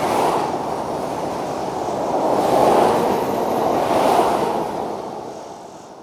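Fast road traffic passing by: a rushing wash of tyre and engine noise that swells twice as vehicles go past in the middle, then fades away toward the end.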